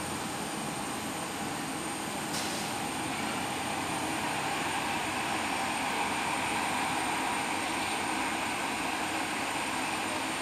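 Airbus A320 airliner's twin jet engines running at taxi power: a steady rushing hum with a faint high whine. It gets a little louder from about two seconds in.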